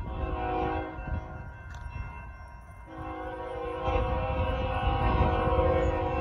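Freight locomotive air horn sounding for the grade crossing: one blast ending about a second in, then a long blast from about three seconds in. Under it the rumble of the approaching train grows louder, and the crossing bells ring.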